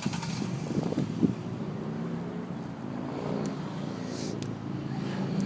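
A few short knocks in the first second or so, then a motor vehicle engine humming steadily and growing louder toward the end.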